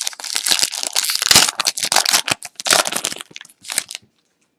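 Crinkling and tearing of a trading-card pack wrapper being opened and crumpled by hand, a dense crackle that stops abruptly about four seconds in.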